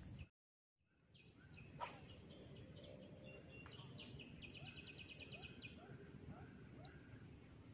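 Faint swamp ambience of birds and insects over a thin steady high whine. A bird calls in scattered chirps and gives one quick trill of about a dozen high notes around four to five seconds in. There is a single sharp click near two seconds, and the sound drops out completely for a moment about half a second in.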